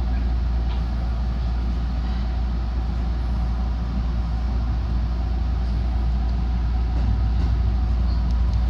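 Steady low hum and noise inside a JR West 207 series electric commuter train.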